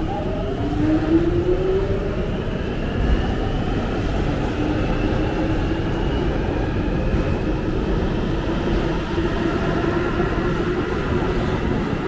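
London Underground Jubilee line train (1996 stock) pulling out of the platform, its traction motors whining and rising in pitch over the first couple of seconds, then holding a steady whine over the rumble of the train.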